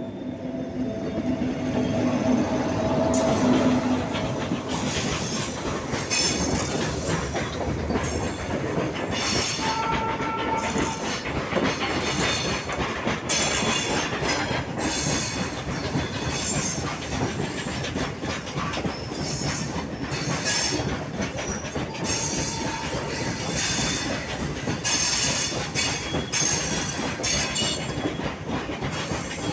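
WAG-9 electric locomotive and its long rake of open box wagons rolling slowly past at close range. The wagon wheels clatter steadily over the rail joints, with brief wheel squeals now and then.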